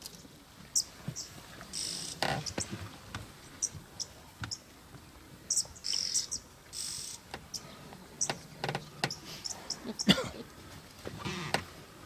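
Red-billed oxpeckers calling with short, high chirps and brief hisses, scattered irregularly, with a few low rustles and knocks among them.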